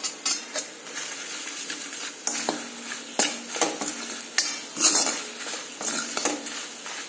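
Steel spoon stirring and scraping masala around a hammered metal kadhai in irregular strokes, a few louder than the rest, over a steady sizzle of spices frying in oil.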